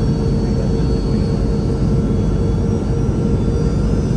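Steady cabin noise inside a Boeing 717-200 airliner during descent: its rear-mounted Rolls-Royce BR715 turbofans and the airflow make an even low roar, with a faint steady hum in it.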